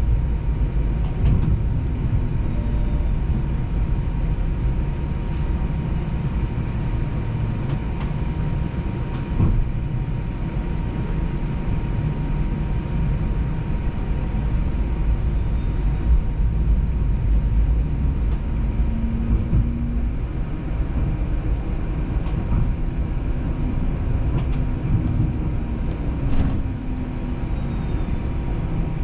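TTC streetcar running on its rails, heard on board: a steady low rumble with a faint steady high tone over it, and scattered clicks and knocks.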